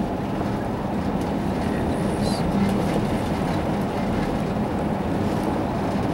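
Steady road and engine noise inside a moving car: an even rumble of tyres on asphalt with a faint low hum.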